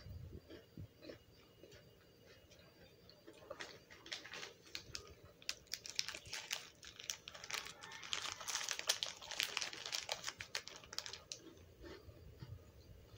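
A cat chewing and crunching food: rapid, irregular clicky crunches, sparse at first and thickest from about four seconds in until about eleven seconds in.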